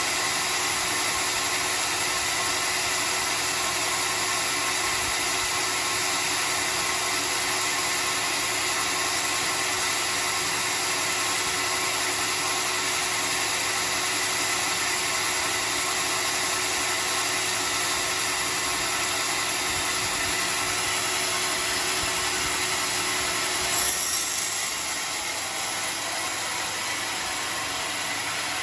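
Homemade sawmill's saw running steadily through a log, a dense mechanical noise with a brief louder burst near the end, after which it runs a little quieter.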